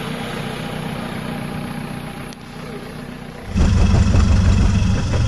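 An off-road 4x4's engine running steadily, then, about three and a half seconds in, a louder, lower engine sound from a Land Rover Discovery idling close by in a mud hole.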